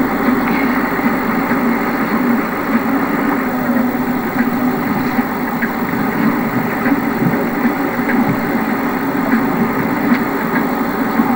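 Paddle steamer under way, its paddle wheel churning the water over the steady running of the engine: an even, unbroken noise.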